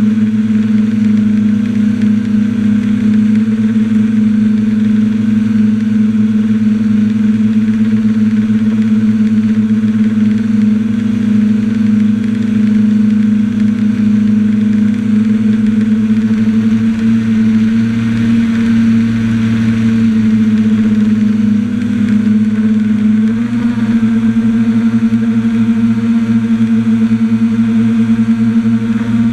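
Quadcopter's electric motors and propellers humming steadily in flight, picked up by the camera riding on the craft. The pitch shifts slightly about three-quarters of the way through.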